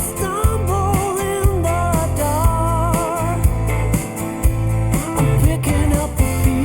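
Pop-rock song with drums, heavy bass and a sustained melody line with vibrato, played back through Bowers & Wilkins PX7 wireless noise-cancelling headphones.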